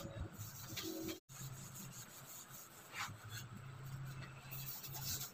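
Scouring sponge scrubbing and rubbing along the greasy edge of a kitchen range hood, in irregular strokes, with a steady low hum behind it. The sound drops out completely for a moment about a second in.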